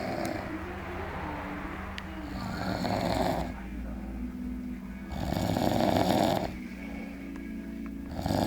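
A pet snoring in its sleep: three long snores about three seconds apart, the last beginning near the end.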